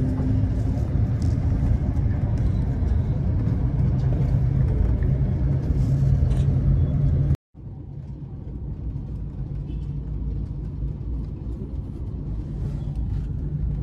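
Steady low rumble inside a moving aerial ropeway cable car, the cabin running along its cable with air noise at the window. It cuts out abruptly about halfway through, then resumes a little quieter.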